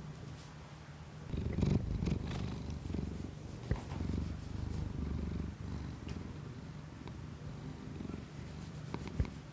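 Domestic cat purring: a low rumble that swells in waves from about a second in. Two brief clicks sound in the middle and near the end.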